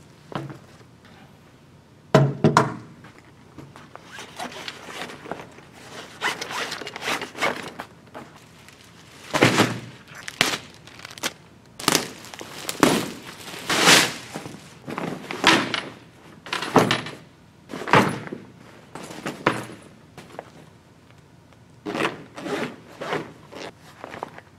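Handling noise as a soft nylon microphone-stand bag (MSB-45) is unpacked on a table: clear plastic wrapping crinkling, fabric rustling, and dull thunks of the bag being set down, in irregular bursts with short pauses.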